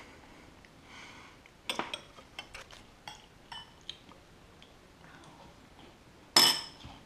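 Glassware and utensils clinking: a quick cluster of clinks about two seconds in, a few lighter taps after it, then one loud, sharp clink near the end that rings briefly.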